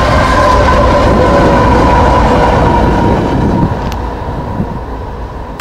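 Diesel-electric locomotives of a Union Pacific freight train, running as mid-train distributed-power units, passing close by. Their engines run over the rolling of steel wheels on the rails, with a steady high whine on top. The sound is loudest for the first three seconds or so and then fades as they move off.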